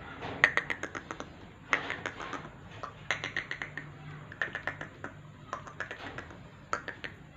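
Caged male black francolin giving soft clicking calls: repeated short bursts of rapid clicks, each under a second, about six times.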